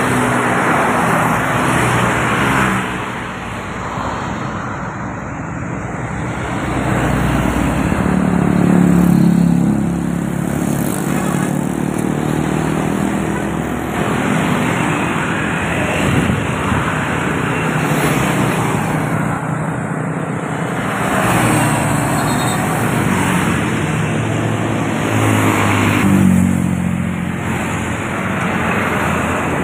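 Busy highway traffic passing close by: intercity buses and motorcycles going past one after another, engine and tyre noise swelling and fading with each pass. A deep engine note is loudest about a third of the way in and again near the end.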